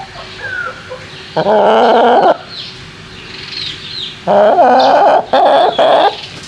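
Backyard hens calling loudly: two long, drawn-out calls, the second longer and broken near its end, with fainter chirps from the flock in between.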